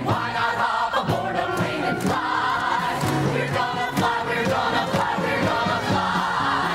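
Musical-theatre ensemble singing together over an orchestral accompaniment with a driving percussion beat.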